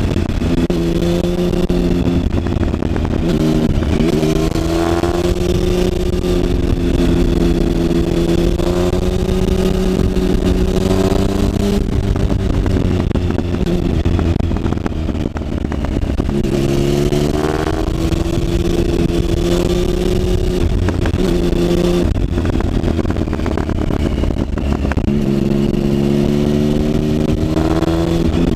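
Triumph Speed Triple's three-cylinder engine heard from onboard, its pitch rising and falling again and again as it accelerates, shifts and slows, with a few quick rising revs around 4, 17 and 25 seconds in.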